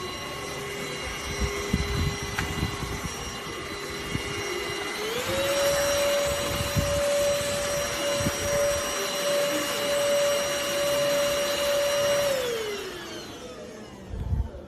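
ENOLUX K7 PRO cordless vacuum cleaner running with a steady motor whine. About five seconds in it steps up to a higher, louder pitch and holds there, then winds down and stops near the end. Scattered low knocks sound along the way.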